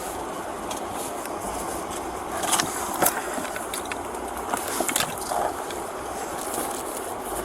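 Steady road-traffic noise with a few short knocks and scrapes, about two and a half, three and five seconds in.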